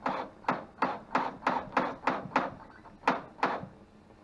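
A quick run of about a dozen sharp knocks, roughly three a second, each with a short ringing tail, stopping shortly before the end.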